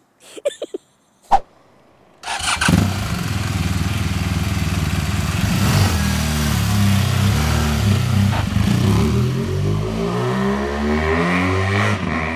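BMW R 1200 RS boxer-twin engine starting about two seconds in, after a sharp click, then running loudly with its pitch shifting as the bike rides off.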